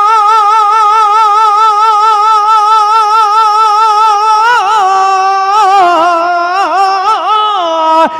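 A man singing a naat, holding one long high note with an even vibrato for about four and a half seconds, then breaking into quick melodic turns and glides on the same breath. Solo voice over a microphone, with no accompaniment.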